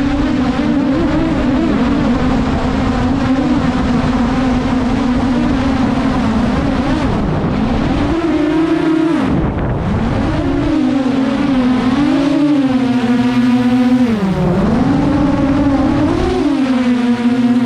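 DJI Mavic drone's propellers whining steadily, the pitch dropping and climbing back several times as the motors change speed, over a low rumble.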